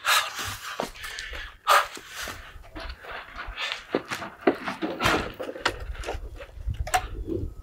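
A man's exaggerated grunts and panting in short, irregular bursts, with a low rumble underneath in the second half.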